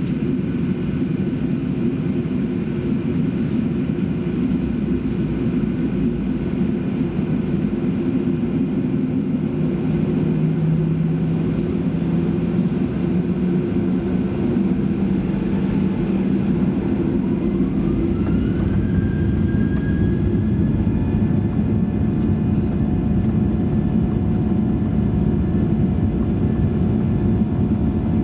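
Boeing 737-800's CFM56 jet engines heard from inside the cabin: a steady low rumble, then a whine that rises in pitch a little past halfway and holds high as the engines spool up for takeoff.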